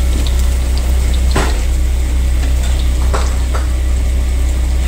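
Minced garlic and chopped celery frying in butter and oil in a frying pan, a faint sizzle with a few light taps, about one and a half, three and three and a half seconds in. Under it runs a loud, steady low hum.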